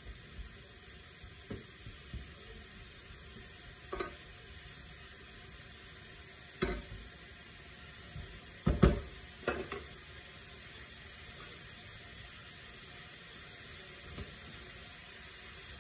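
Grated zucchini frying in a nonstick pan with a steady sizzling hiss while it is stirred with a wooden spatula. Scattered knocks and scrapes of the spatula against the pan, the loudest cluster about nine seconds in.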